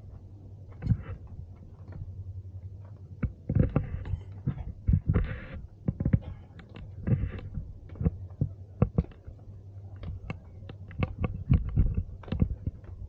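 Handling noise from a 360° camera carried on a long selfie stick while walking: irregular low thumps and clicks over a steady low hum.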